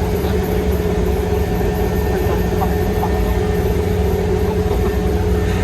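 Rice harvester's engine running steadily with a low, even drone.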